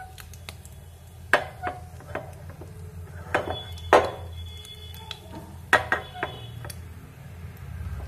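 Metal spatula knocking and scraping against a small tadka pan while stirring spices in hot oil: several sharp clinks, the loudest about four seconds in, over a steady low hum.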